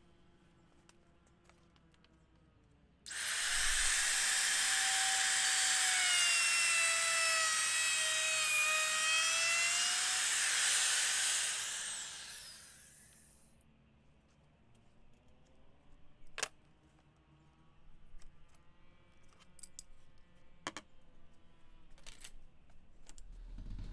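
Handheld electric router cutting plywood, shaping the curved cutout of a boat seat bulkhead. It starts abruptly about three seconds in and runs with a high whine whose pitch sags slightly as the bit bites. It is switched off near twelve seconds and winds down, followed by a few light knocks.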